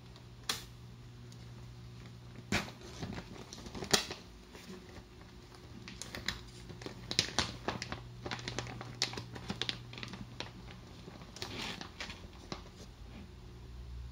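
Plastic snack-style bag crinkling and crackling in irregular bursts as it is handled and tipped to pour shredded cheese, with a low steady hum underneath.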